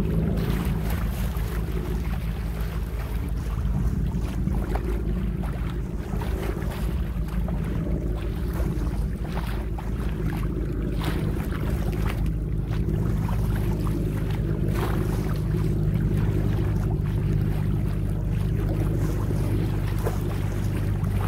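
Water rushing and splashing along the hull of a Hunter 356 sailboat under way, with wind buffeting the microphone. A steady low drone runs underneath.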